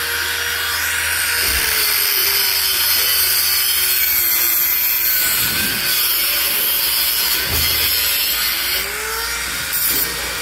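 Electric angle grinder running loud and steady on metal. Its motor pitch sags slowly under load and picks up again about nine seconds in as the load eases.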